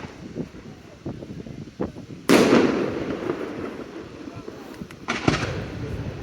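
Fireworks display: aerial shells bursting with a loud bang about two seconds in and another about five seconds in, with smaller cracks and pops between them.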